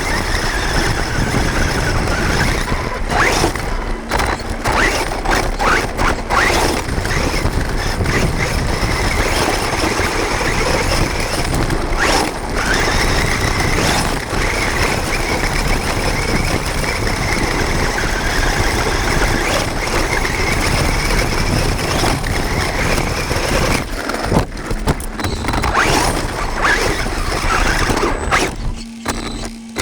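HSP Brontosaurus electric RC monster truck's motor and gear drivetrain whining and grinding as it drives, heard close up from a camera mounted on the truck, with repeated sharp knocks from bumps and landings.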